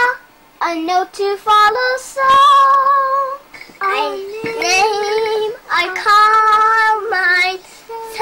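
Young children singing a song unaccompanied, in short phrases with long held notes.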